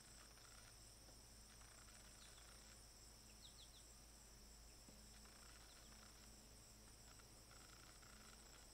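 Near silence with a faint, steady high-pitched insect trill, like crickets chirring in the grass, and a few faint high chirps about three and a half seconds in.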